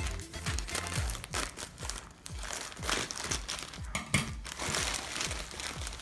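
Plastic courier mailer bag crinkling and rustling as hands work it open and pull out a bubble-wrapped parcel. Background music with a steady bass beat plays under it.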